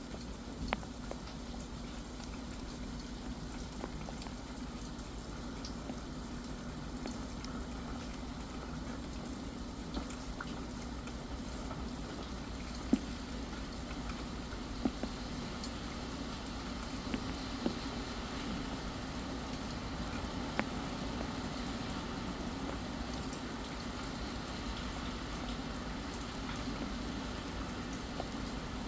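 Steady rain falling, an even hiss with a few single louder drop ticks scattered through it.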